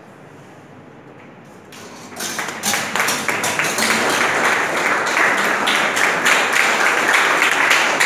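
Low room noise, then about two seconds in a small audience starts applauding and keeps clapping steadily.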